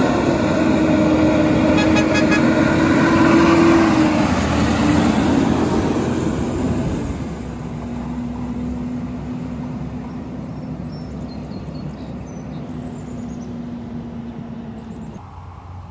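Rear-loader garbage truck driving past and pulling away, its diesel engine running with a steady droning tone. It is loudest in the first four seconds. The tone drops lower about seven seconds in, fades as the truck moves off, and cuts off shortly before the end.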